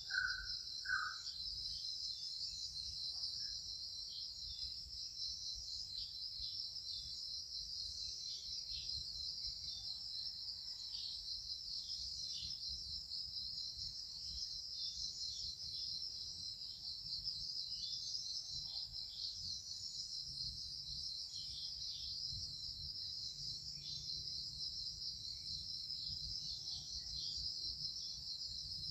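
Steady, high-pitched insect chorus that runs on without a break, with a couple of short chirps right at the start and a low rumble underneath.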